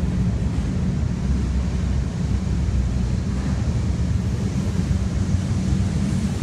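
CSX freight train's cars rolling past directly below, a steady low rumble of steel wheels on the rails.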